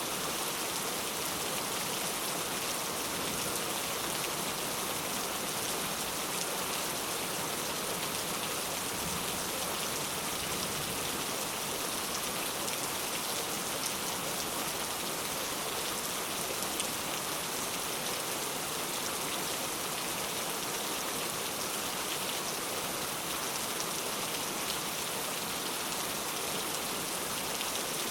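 Heavy rain falling steadily, a dense, even hiss of drops that neither builds nor eases.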